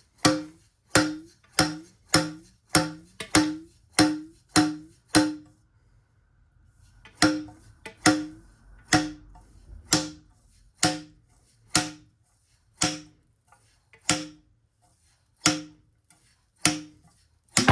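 Upper tube of a 1998 Kawasaki ZX11 front fork being pulled out and slammed back against the lower leg like a slide hammer: repeated metal clunks with a short ring, about two a second. The strikes pause for about two seconds in the middle and then resume less evenly. This is the tube being used to knock the inner fork seal and bushings free.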